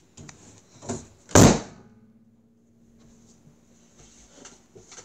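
A few light knocks, then one loud thump about a second and a half in, with a short ring-out after it, like a door or lid banging shut. A faint steady low hum and light rustling follow.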